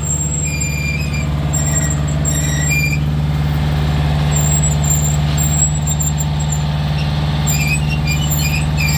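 Jinma 20 hp four-wheel-drive tractor's engine running steadily at an even speed, with short high-pitched squeaks on and off over it.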